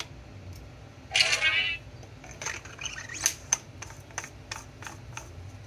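A brief scraping rustle, then a run of light clicks and taps as the lightsaber hilt and its removable battery are handled.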